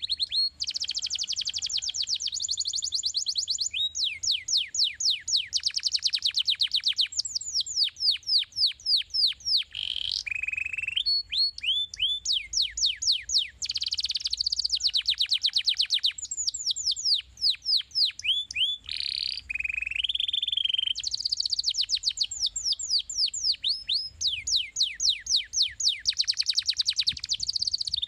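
Domestic canary singing a long, continuous song. Fast trills of rapid falling notes alternate with brief held whistled notes.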